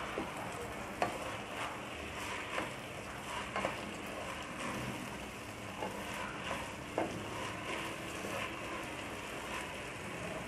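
Soaked polao rice frying in hot oil in a nonstick pan: a steady sizzle with scattered crackling pops as the grains toast, and the spatula scraping through the rice as it is stirred.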